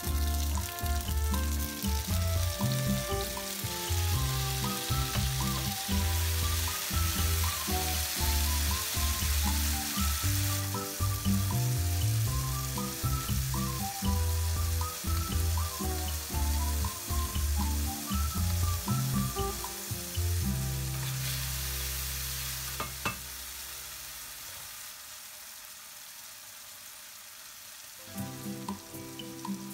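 Cherry tomatoes and sliced garlic frying in olive oil in a stainless steel pan: a steady sizzle. Background music with a bass line plays over it and drops out for a few seconds near the end, leaving the sizzle alone.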